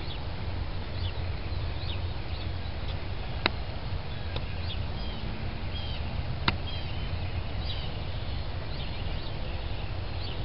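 Small birds chirping in short, high calls over a steady low rumble, with two sharp clicks a few seconds apart.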